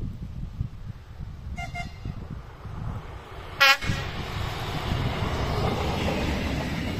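Czech Railways RegioNova diesel railcar sounding its horn: a faint short double toot about a second and a half in, then a loud short blast a couple of seconds later, followed by the swelling rumble of the railcar's wheels and engine as it runs past close by.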